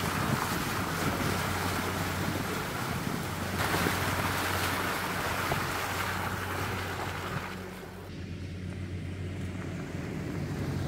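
Jeep Wrangler engine running at low speed on a dirt track, a steady low hum with a rushing hiss over it. The hiss drops away about eight seconds in, leaving a quieter engine hum.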